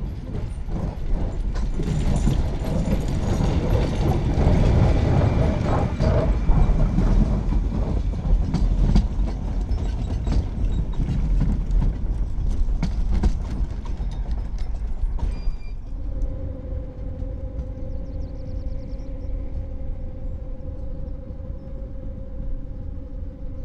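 1924 vintage electric rack-railway train running past close by, a loud rumbling clatter of wheels and rack gear with many sharp clicks. About fifteen seconds in the clatter gives way suddenly to a quieter, steady hum.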